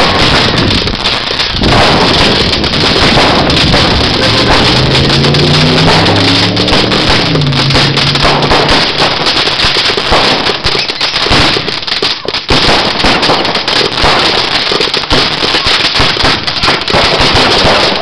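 Fireworks going off in a dense, continuous run of bangs and crackles, loud throughout, easing briefly about two-thirds of the way in.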